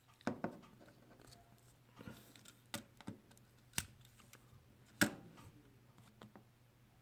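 Vintage scout-style pocket knife being handled: a series of sharp metal clicks of blades and tools snapping open and shut, with light scraping in between. The loudest snap comes about five seconds in.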